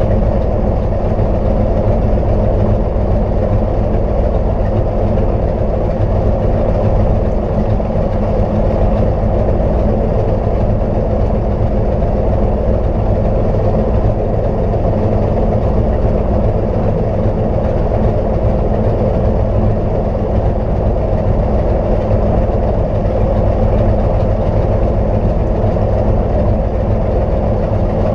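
Cozy Mk IV light aircraft's piston engine running steadily, a constant low drone with no change in speed.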